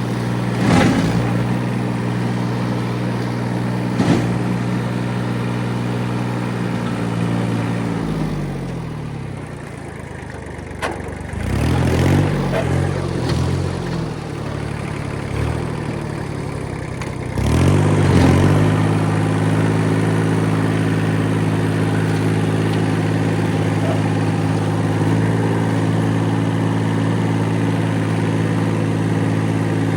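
Kubota diesel engine running steadily. It is throttled down about eight seconds in, revs up and down briefly around eleven to thirteen seconds, then comes back up to a steady speed. A few sharp knocks come near the start and around eleven seconds.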